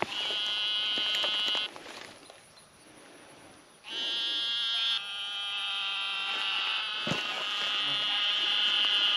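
High buzzing trills from a small weedy pond, taken for frogs calling: one trill lasting about a second and a half, a pause of about two seconds, then a longer trill that runs on for over five seconds.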